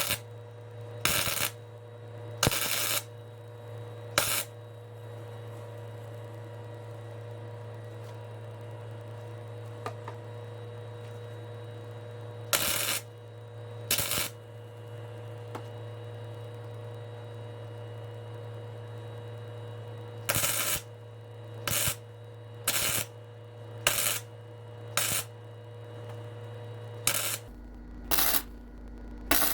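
Welder laying short tack and stitch welds along a cracked BMW E46 rear subframe: about fifteen brief crackling bursts in clusters with pauses between them. A steady electrical hum runs underneath and changes near the end.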